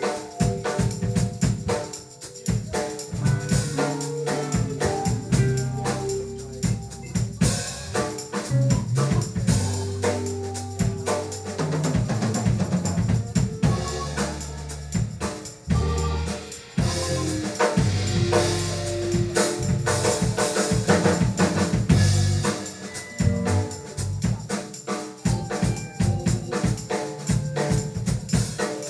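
Live band playing an instrumental passage with no singing: electric guitar, electric bass, keyboard and drum kit, with a steady bass line and cymbal-heavy drumming throughout.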